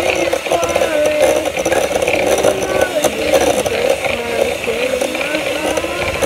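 Electric mixer running, its beaters working cookie batter in a bowl, with a voice singing over it.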